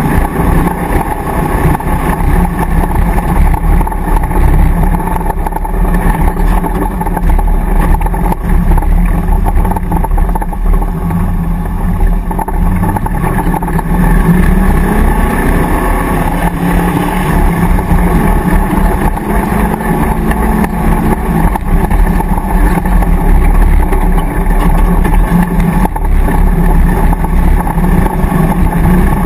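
Land Rover safari racer's V8 engine running hard under load, heard from inside the car, its revs rising and falling as the driver works the throttle.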